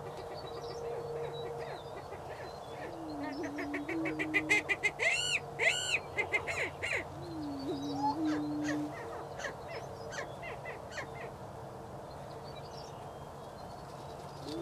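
Male greater prairie chickens displaying: two low, hollow booming moans, each with a small step in pitch, about three and seven seconds in. Between them comes a run of sharp cackling calls, the loudest just past the middle. A faint steady low drone sits underneath throughout.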